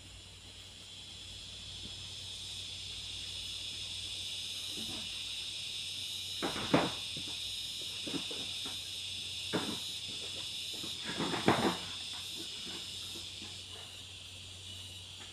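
Steady high-pitched drone of forest insects, with a handful of sharp knocks in the middle as bamboo poles are picked up from a pile and bump against each other.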